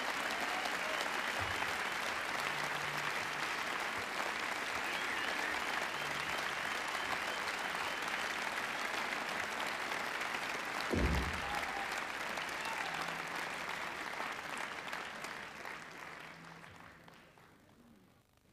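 Concert audience applauding, with a single low thump about eleven seconds in; the applause fades away over the last few seconds.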